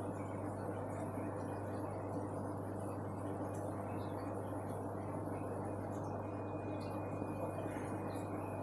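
Steady low electrical hum under an even background hiss, with a few faint scattered ticks.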